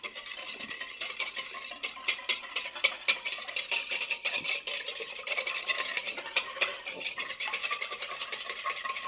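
A utensil briskly stirring an oil-and-vinegar dressing in the bottom of a salad bowl: rapid, continuous clicking and scraping against the bowl.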